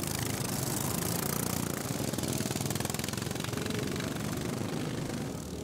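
A pack of racing ride-on lawn mowers driving past at speed, many small engines running together in a steady, dense engine noise.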